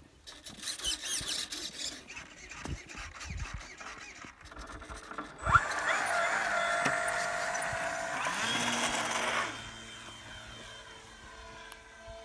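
Electric motor and propeller of a Sea Star EP radio-control model plane. About five and a half seconds in it throttles up sharply to a steady high whine, held for about four seconds on the take-off run, then grows fainter as the plane climbs away.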